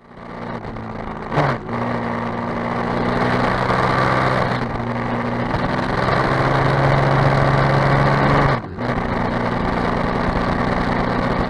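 Aprilia SXV supermoto's V-twin engine running steadily at road speed. The pitch shifts slightly a few times, and the sound dips briefly twice, about a second and a half in and near the end.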